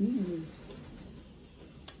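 A short hummed "mmm" of enjoyment from a woman eating, its pitch sliding up and down for about half a second, then a single crisp click near the end as she bites into her food.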